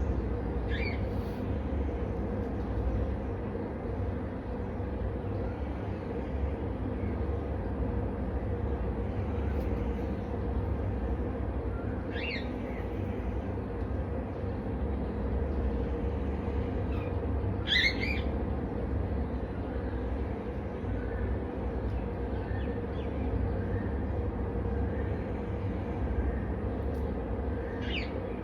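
Short, high bird-like calls, four of them several seconds apart, over a steady low rumble; the loudest call comes about two-thirds of the way through.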